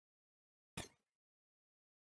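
Near silence, broken once, less than a second in, by a single short pop that dies away within about a quarter of a second.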